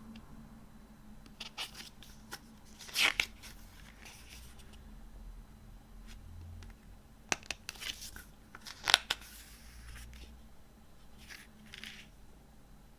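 CD packaging being handled: scattered light rustles, clicks and taps, with two louder rustles, one about three seconds in and one about nine seconds in.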